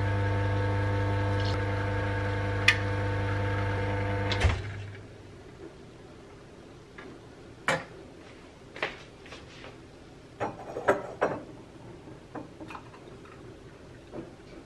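Espresso machine's pump humming steadily as a shot is pulled, cutting off with a click about four and a half seconds in. After that come a series of short, light clinks and knocks.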